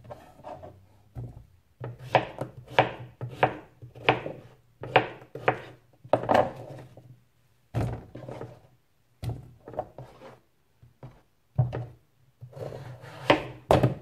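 Kitchen knife cutting zucchini into chunks on a cutting board: a run of sharp knocks as the blade hits the board, irregular, about one to two a second, with short pauses between runs.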